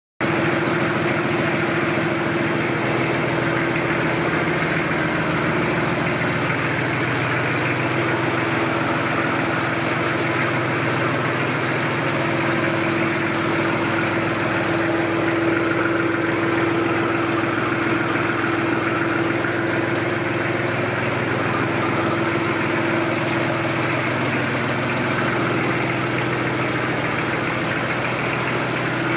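2005 Shire 320 compact tractor's engine idling steadily with an even hum.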